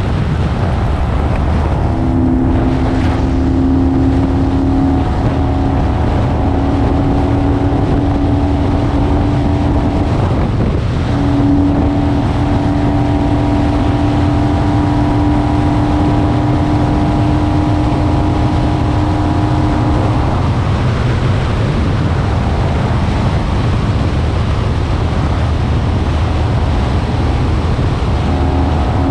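Kawasaki Vulcan 900 V-twin engine running steadily at highway cruising speed, under loud wind rush on the camera microphone and road rumble. The engine hum holds steady, dipping briefly about ten seconds in.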